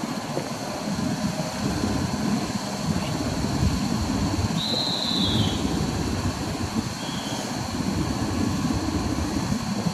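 Steady low rumble from an EP07 electric locomotive standing at the platform. A short high whistle sounds about five seconds in, and a fainter one about two seconds later.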